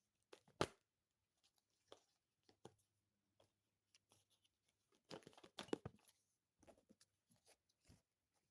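Cards being handled in a quiet small room: a sharp snap about half a second in, a few soft ticks, then a burst of rustling and flicking about five seconds in.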